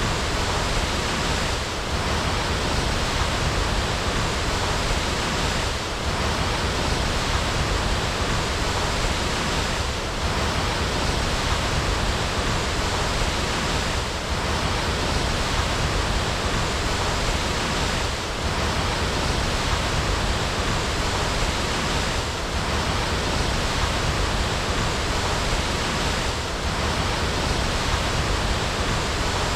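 Waterfall rushing steadily, an even roar of falling water with a slight dip about every four seconds.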